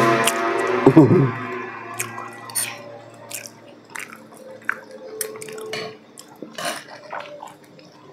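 A passing motor vehicle's engine drops in pitch and fades away in the first second or so. Then mealtime sounds: chewing and the soft clicks and scrapes of metal spoons on plates.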